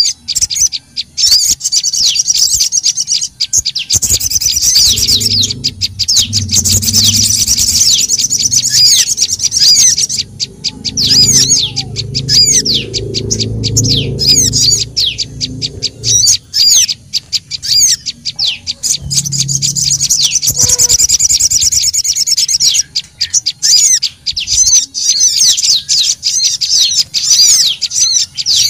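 Bird-lure recording of sogon and prenjak lumut calls: fast, busy high-pitched chirping and trilling, in dense spells near the start, in the middle and near the end, with sparser chirps between.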